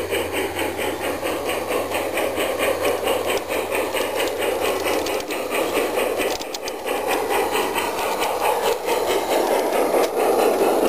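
Large-scale garden railway model steam locomotive and coaches running past, with a fast, even chuffing rhythm over the rattle of wheels on the track, getting louder near the end as the train comes close.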